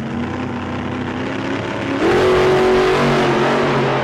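An engine revving, with a sharp rise in pitch and loudness about halfway through, then holding high.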